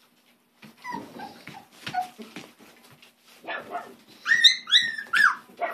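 Miniature beagle whimpering and yipping: a few faint short whines, then three loud high-pitched yelps, each falling in pitch, about four seconds in.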